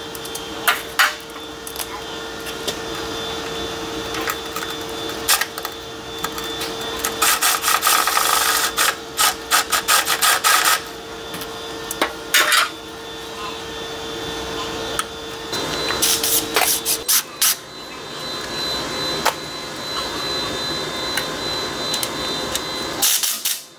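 Hand-tool work on a truck's underside: bursts of rapid metallic clicking, the longest about 7 to 11 seconds in, with shorter runs later, over a steady hum that stops about 16 seconds in.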